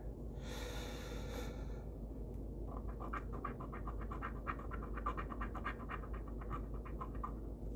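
Scratch-off lottery ticket being scraped with a coin, with quick repeated strokes of about six a second starting about three seconds in. A brief soft hiss comes first.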